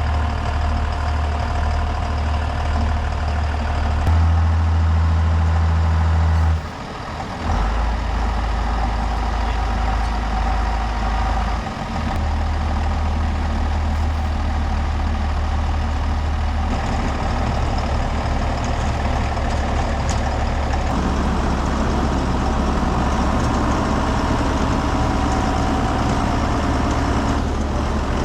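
Farm tractor's diesel engine running steadily under work. Its pitch and strength shift several times, with a brief drop about seven seconds in, as throttle or load changes.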